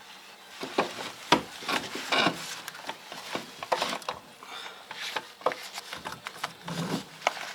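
Irregular knocks and scraping of a heavy metal part being manoeuvred into place: the Niva's front-axle gearbox being lifted and lined up with its mounting under the car, with one sharp knock about a second in.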